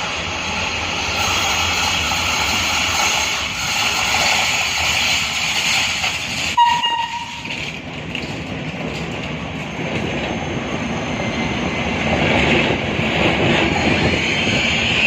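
Train running along the station track, a steady rumble with wheel noise that grows louder toward the end. About six and a half seconds in, the train sounds one short horn toot.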